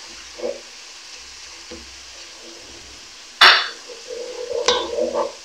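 Sliced onions and whole spices sizzling in hot oil in a pot, frying toward golden brown, while a wooden spoon stirs and scrapes against the pot. A loud scrape comes about three and a half seconds in, and a smaller one a second later.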